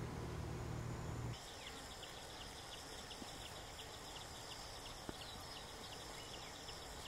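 A low steady rumble stops about a second in. After it, insects keep up a high, rapid, repeated chirping over soft outdoor hiss.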